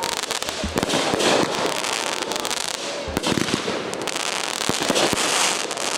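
Fireworks display going off: continuous dense crackling with many sharp pops and bangs.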